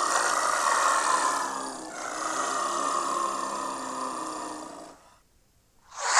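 Dinosaur creature sound effect: a long pitched call with a raspy, noisy edge, in two parts, the second starting about two seconds in and fading out near five seconds. A short, loud new sound starts right at the end.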